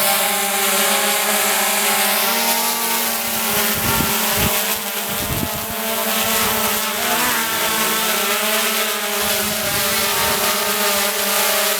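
Quadcopter drone's propellers buzzing steadily as it hovers, the pitch dipping and recovering about seven seconds in as it adjusts to hold position in the breeze. Wind buffets the microphone around the middle.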